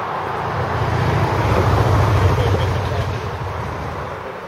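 A motor vehicle passing by: a low rumble that swells to its loudest about two seconds in, then fades.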